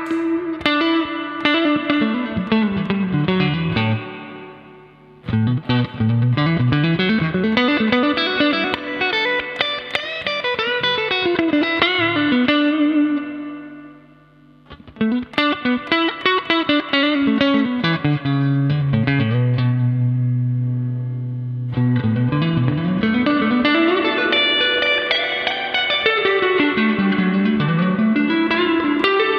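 Electric guitar played through a Fender Hot Rod Deluxe IV 40-watt tube combo amp on its clean channel, with the reverb turned up. Quick single-note runs rise and fall, with two brief pauses and a held low note partway through.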